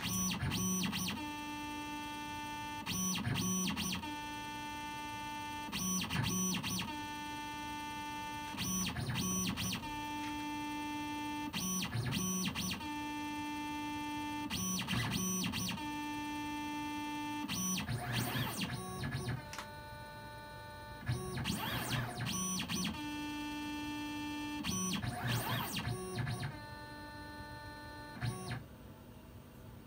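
Tormach PCNC 770 CNC mill's axis motors whining steadily as the machine runs an automatic probing cycle around a pin. The whine comes in repeated stretches of about two seconds at the same pitch, with short pauses and changes between the moves, and dies down near the end once the cycle is finished.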